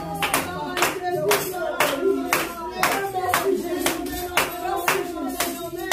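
A church congregation clapping hands in a steady rhythm, about two claps a second, with voices singing a praise song underneath.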